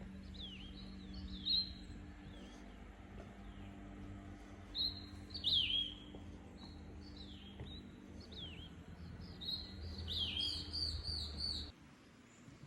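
Songbirds chirping: short notes that drop quickly in pitch, repeated at irregular intervals, with a fast run of notes near the end. A low steady hum lies underneath, and all of it cuts off abruptly near the end.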